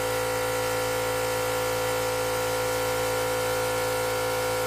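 Small workshop air compressor running steadily, its motor and pump making an even, unchanging hum.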